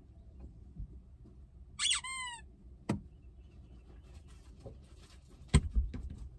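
One short, high squeak falling in pitch about two seconds in, then a sharp click, and a thump followed by a few light knocks near the end.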